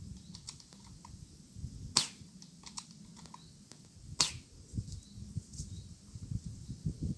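Two shots from a suppressed spring-powered airsoft SRS bolt-action rifle, each a short sharp snap, about two seconds apart. Fainter clicks fall between the shots.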